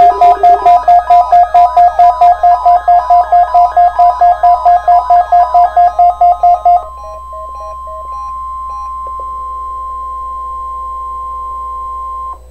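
Electronic alarm beeping rapidly, about four to five beeps a second in a chord of high tones, for about seven seconds. After a short gap, the NOAA Weather Radio 1050 Hz warning alarm tone sounds steadily for about four seconds and cuts off. It is the tone that turns on weather alert receivers, here sent as a tornado drill test.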